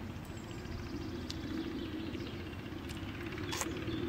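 Woodland ambience: a steady low rumble with a few faint bird chirps, and one short sharp rustle or click about three and a half seconds in.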